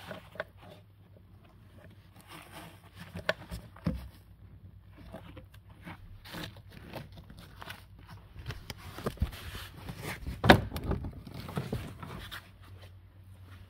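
Scattered handling knocks, taps and scrapes, with one sharp knock about ten seconds in, over a faint steady low hum.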